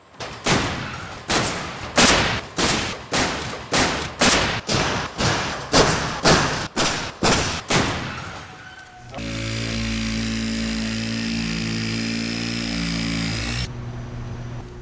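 Percussive intro music: heavy hits about twice a second for around eight seconds, then a sustained droning chord that cuts off about a second before the end.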